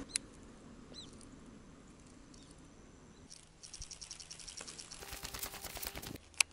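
Baitcasting reel being cranked to bring in a lure: a fast run of fine clicks from the reel that gets louder and busier over the last few seconds, then one sharp click near the end.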